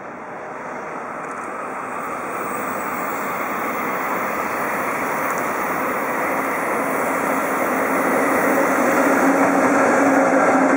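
JR Freight EF66 electric locomotive hauling a container freight train, approaching and growing steadily louder as it draws near. A steady low hum comes in during the last few seconds as the locomotive passes close by.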